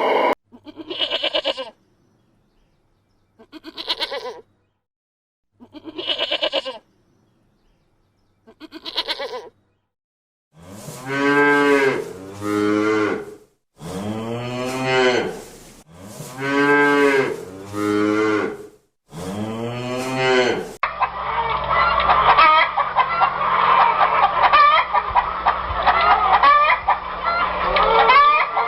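A run of farm animal calls. First come four short calls about two and a half seconds apart, then six long, deep calls in pairs that rise and fall, typical of cattle mooing. From about two-thirds of the way through, a flock of poultry clucks and calls continuously.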